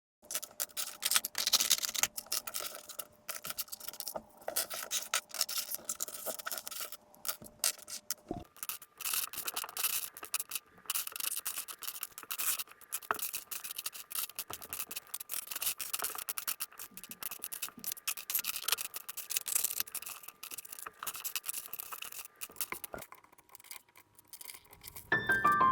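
Loose plastic LEGO Technic pieces clicking and rattling against each other as they are rummaged through and sorted by hand, a busy run of small clicks and scrapes.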